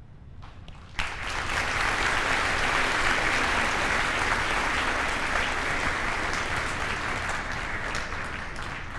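Audience applauding in a large hall, beginning suddenly about a second in and tapering slightly near the end.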